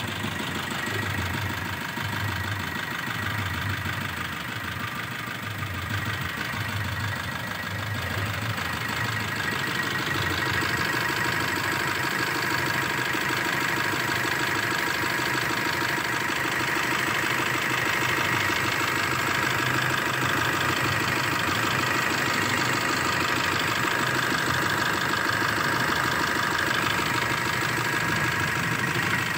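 Suzuki Brezza's 1.3-litre four-cylinder turbo-diesel idling steadily just after a full engine overhaul, left running for its hours-long run-in. It runs smoothly and sounds sweet, and grows a little louder about ten seconds in.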